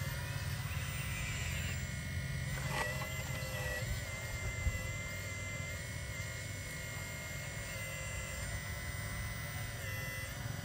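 RC hydraulic excavator's electric motors whining steadily, the pitch stepping slightly as the boom and bucket move, with a single sharp knock about halfway through.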